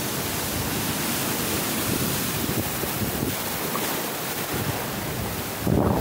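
Typhoon storm-surge waves breaking and washing across a concrete seawall walkway, a steady rush of surf with wind buffeting the microphone. A louder surge of noise comes near the end.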